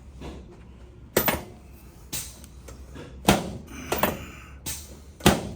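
Sharp knocks and thuds on a chiropractic adjusting table under a patient lying face down, about six in all, roughly one a second, with every other one louder.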